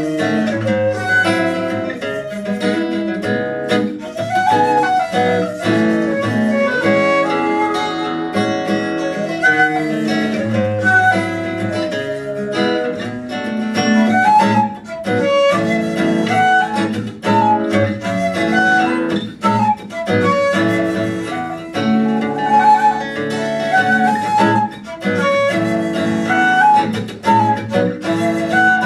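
Shakuhachi and acoustic guitar playing a duet: the bamboo flute carries a sustained melody with bending notes over fingerpicked guitar.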